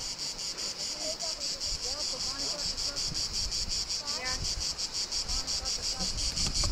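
Insects chirring in a steady, fast high-pitched pulse of several beats a second.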